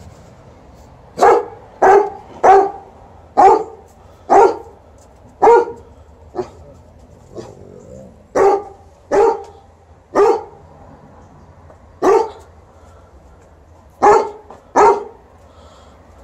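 A dog barking repeatedly: about a dozen short, loud barks in uneven groups of two or three, starting about a second in.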